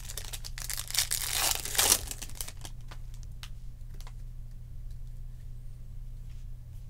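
Foil wrapper of a Topps Chrome jumbo pack of trading cards torn open and crinkled for about two and a half seconds. A few faint clicks follow as the cards are slid out and handled.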